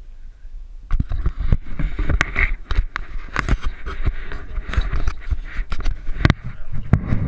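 Handling noise on a GoPro camera: irregular knocks and scrapes of fingers on the camera, starting about a second in, over a low wind rumble.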